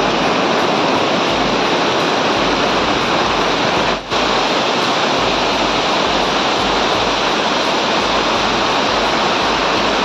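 Waterfall rushing down bare rock slabs, a loud, steady wash of white water. It breaks off for a moment about four seconds in.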